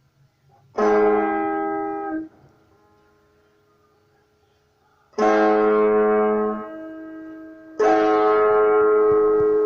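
Guitar chords sustained by a homemade electromagnet, a DIY EBow. Three chords are struck about a second, five seconds and eight seconds in. The last two ring on at an even level instead of dying away, and a faint held tone carries between them.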